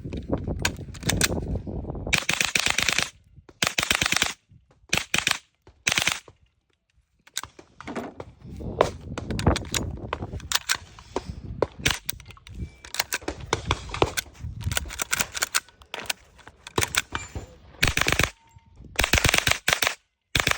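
.22 LR rifle fired through a CMMG .22 LR bolt conversion: rapid strings of sharp shots, some packed tightly together, others spaced out, with short pauses between strings.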